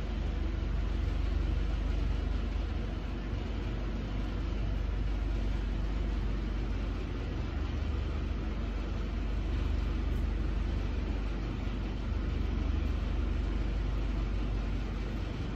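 A steady low rumble of running machinery that holds even throughout.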